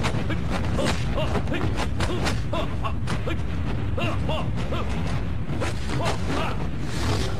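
Film fight sound effects from a hand-to-hand kung fu exchange: a rapid run of punch and block impacts with swishing arm whooshes, several hits a second. Short grunts and a low steady rumble lie underneath.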